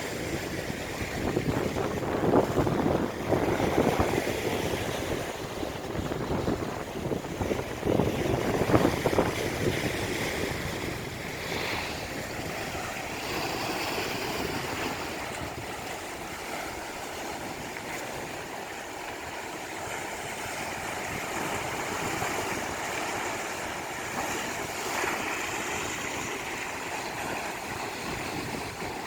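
Ocean waves breaking on a beach, with loud surges about two, four and eight seconds in, then a steadier, softer wash of surf.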